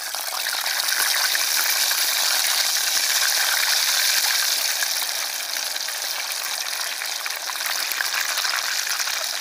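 Thin potato slices frying in hot oil in a small pan: a loud, dense sizzle that builds over the first second as the slices go in, then holds steady.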